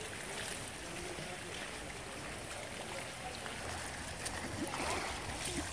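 Swimming-pool water splashing and washing as a swimmer does backstroke arm strokes, an even steady wash with a few sharper splashes near the end.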